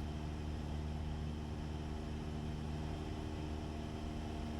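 Cessna 172's piston engine and propeller droning steadily in level flight, heard from inside the cabin over an even hiss.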